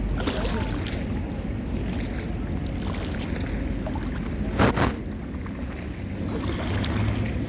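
Steady rushing noise of wind and water with a low rumble, and one short louder gust or splash about four and a half seconds in.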